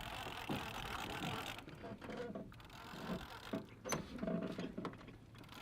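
Fishing reel being worked: a mechanical whirr for the first second and a half, then scattered clicks, with one sharp click about four seconds in.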